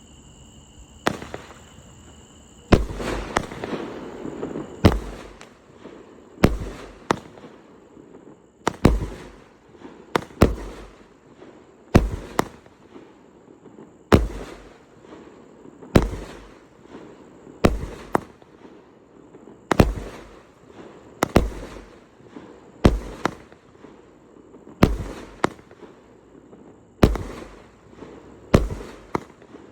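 A 36-shot firework cake firing its shots one after another: a sharp bang about every one to two seconds, some in quick pairs, each dying away briefly before the next.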